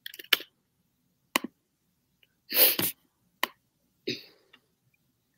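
A few sharp, separate clicks in a quiet room. About two and a half seconds in comes a short, loud breathy burst from a person, and a softer, shorter one follows about a second and a half later.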